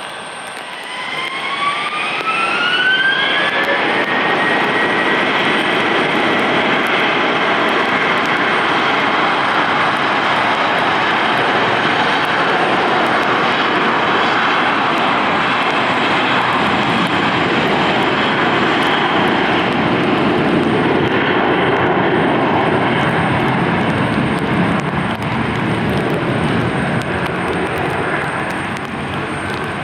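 Airbus A321-231 twin jet engines (IAE V2500) spooling up for takeoff: a rising whine over the first three seconds or so levels off into the loud, steady rush of takeoff thrust, easing off near the end.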